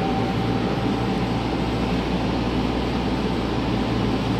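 Steady ventilation hum and rush of air inside a cable-driven airport people-mover car standing at the platform with its doors open.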